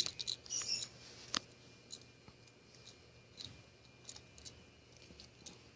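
Faint scattered clicks and short rustles of small trinkets and their packaging being handled, with one sharper click about a second and a half in.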